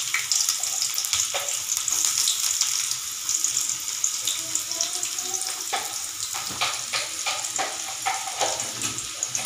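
Sliced onions frying in hot oil in a kadai: a steady sizzle with frequent crackles, which grow denser in the second half. The sound stops abruptly at the very end.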